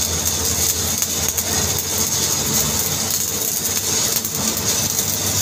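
Stick (SMAW) welding arc crackling and sizzling steadily as an electrode burns overhead, over a steady low hum.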